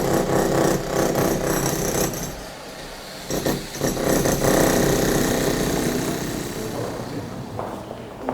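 Rapid mechanical hammering of a power tool, in two long runs with a short break about two and a half seconds in, tailing off near the end.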